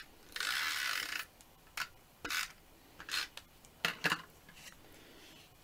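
Stampin' Up! Snail adhesive tape runner drawn across the back of a paper card panel: one long stroke of nearly a second, then several short scrapes and clicks as more adhesive is laid and the paper is handled.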